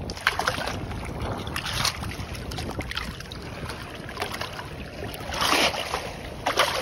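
Shallow seawater splashing and sloshing as a striped bass is held in the water by hand and released, with a few louder splashes, the largest near the end, over a steady rumble of wind on the microphone.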